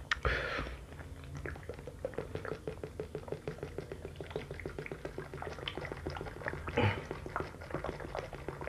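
Gulping water from a plastic drinking cup close to the microphone: a steady run of swallows several times a second. A brief noisy burst comes just at the start, and a louder sound a little before seven seconds.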